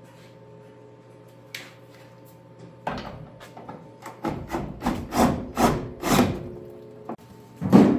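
Hand-tool work: a run of scraping, rubbing strokes, about two a second, begins about three seconds in, with a loud knock near the end, over a faint steady hum.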